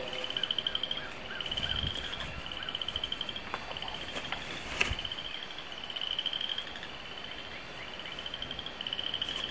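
Frogs calling at dusk: a short, slightly rising trill repeated every second or so. A single sharp click sounds about five seconds in.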